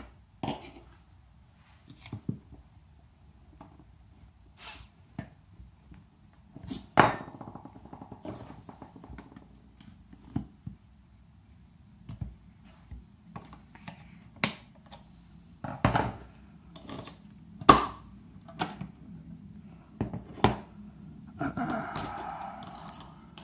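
Scattered sharp clicks and knocks of small parts and tools handled while an airsoft rifle's gearbox is opened up, with a brief rough scraping rustle near the end.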